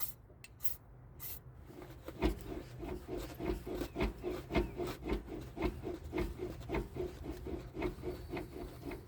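A few short hisses of penetrating-oil spray, then a freshly oiled cable being worked back and forth in its housing: a rhythmic rubbing, about three strokes a second.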